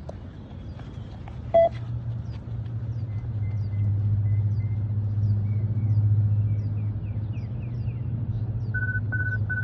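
A vehicle engine's low rumble builds about a second and a half in and holds steady, with faint bird chirps over it. A single beep sounds as the rumble begins, then three quick beeps near the end: the beep-test recording's triple beep marking a new level.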